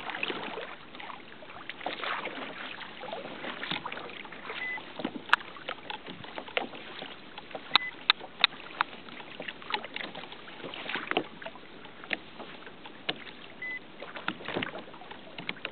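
Water lapping and slapping against a plastic fishing kayak's hull, with many scattered sharp clicks and knocks and three brief high beeps.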